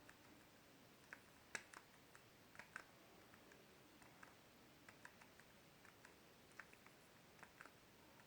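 Faint, irregular clicks of remote-control buttons being pressed, a dozen or so scattered through, while channels are moved in a satellite receiver's channel list.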